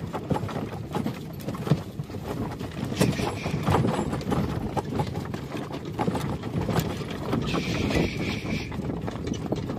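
Hooves of several horses clip-clopping at a brisk, hurried walk, an irregular run of overlapping hoofbeats.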